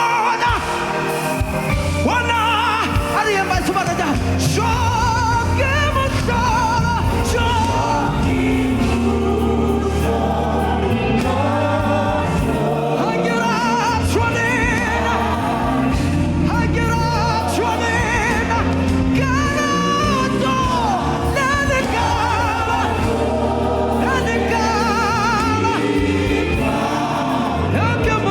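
Gospel praise song: voices singing with vibrato over a steady instrumental backing with sustained bass notes.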